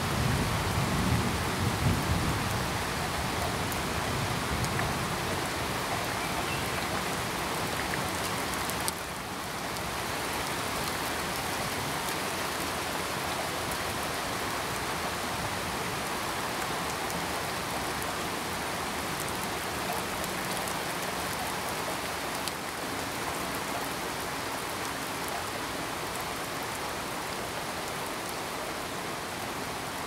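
Steady heavy rain pouring down, with a low rumble of thunder dying away in the first few seconds. The rain turns slightly softer about nine seconds in.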